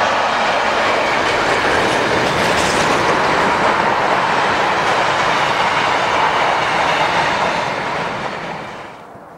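Container freight train hauled by a Class 90 electric locomotive passing at speed: a loud, steady rush and rattle of wagon wheels on the rails, fading away about eight seconds in.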